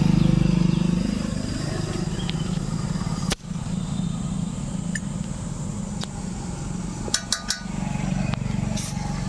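Steady low hum of an air compressor running while a motorcycle's tubeless tyre is inflated through its valve with an air chuck. The hum cuts out briefly about a third of the way in, and a few sharp clicks follow later.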